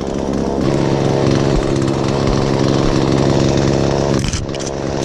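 Chainsaw engine running at a steady speed, dipping briefly about four seconds in.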